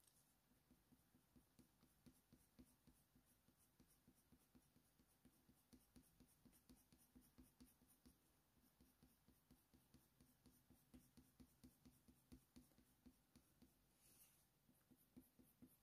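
Very faint, quick scratching of an oil-based coloured pencil (Faber-Castell Polychromos) laying short fur strokes on smooth hot-press watercolour paper, several strokes a second.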